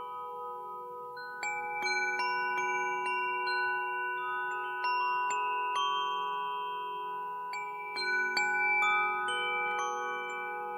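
Wind chime (Nada chime) ringing: clear metal tones struck at irregular moments, each note ringing on and overlapping the others, with clusters of strikes about two seconds in and again about eight seconds in.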